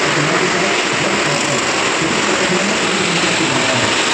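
Several stunt motorcycles' engines running at speed round the vertical wooden wall of a Well of Death, a loud, continuous din whose pitch wavers up and down as the bikes circle.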